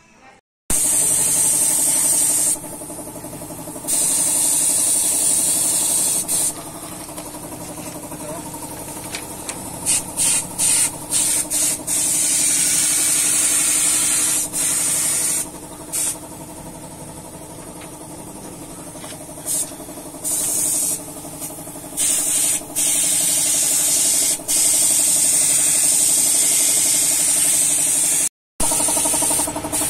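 Airbrush spraying paint in on-and-off hissing bursts, some long and some quick and short, over the steady hum of an air compressor running.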